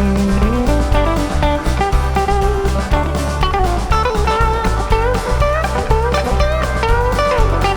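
Blues-rock band playing an instrumental break: an electric guitar lead with bent notes over bass and a drum kit.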